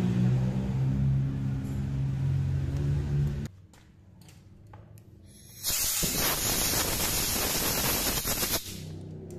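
A low steady hum for the first three and a half seconds. Then, after a short lull, a loud even spraying hiss that starts and stops abruptly and lasts about three seconds.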